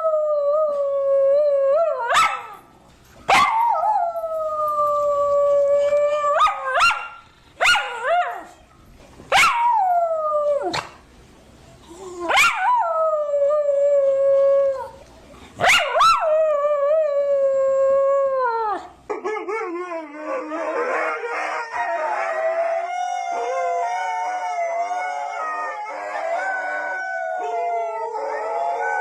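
Dog howling in a series of about seven howls, each starting sharply and then holding a long tone that sags slightly in pitch. About two-thirds of the way through, this gives way to several howls overlapping continuously.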